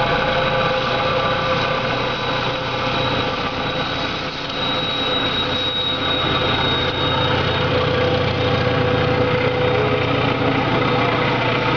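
An SM42 diesel-electric locomotive's engine running steadily as the locomotive passes close by, with a high whine in the middle, followed by passenger coaches rolling past on the rails near the end.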